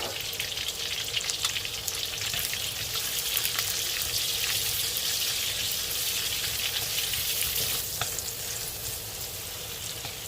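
Red onions and garlic sizzling steadily in hot pork fat in a pan, with a few light clicks, one of them about eight seconds in.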